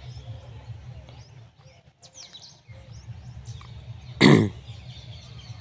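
Birds chirping faintly over a steady low hum, with one short, loud, throaty grunt-like sound about four seconds in.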